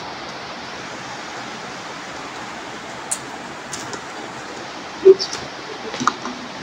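Steady background hiss, with a few short crinkles and clicks as fingers pick at a bubble-wrapped parcel's wrapping. A sharp knock about five seconds in is the loudest sound, followed by a few smaller taps as scissors come onto the wooden tabletop.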